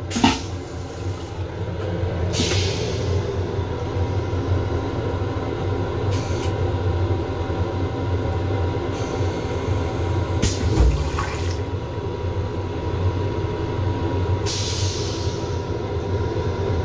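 Long Island Rail Road M7 railcar toilet running its flush cycle. It starts with a click, then a steady low hum of machinery runs under rushing water. Short hissing spurts come several times, with a low thump about eleven seconds in.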